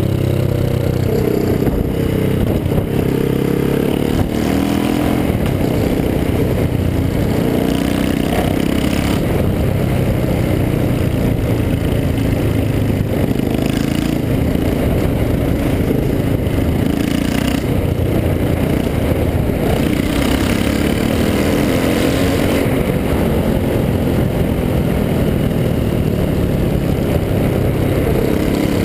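Yamaha XT660R's 660 cc single-cylinder engine running loud with one of its exhausts opened up, its pitch rising and falling as the bike is ridden.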